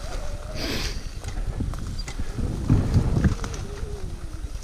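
Sur-Ron electric dirt bike's motor whining, its pitch drifting up and down with the throttle, over wind noise on the microphone. Low knocks from the bike over rough ground come about halfway through and are the loudest part.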